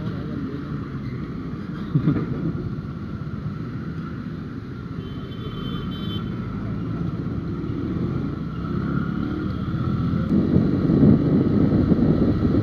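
Motorcycle engine running under the rider in traffic, with road and wind noise on the camera microphone. A faint high tone sounds briefly about five seconds in, and the engine and wind grow louder about ten seconds in as the bike picks up speed on open road.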